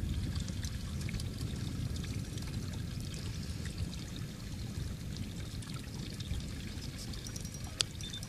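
Steady low rushing of water around the boat, with a single sharp click near the end.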